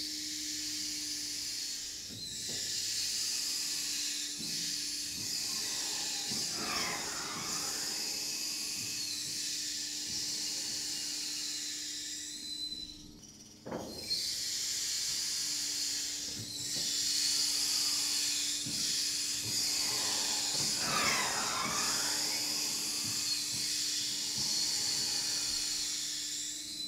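Three-axis motion platform running test moves: a steady mechanical hiss with whining tones that rise and fall as the actuators drive the deck, over a low steady hum. About halfway through the hiss drops out briefly with a sharp knock, then starts up again for a second run.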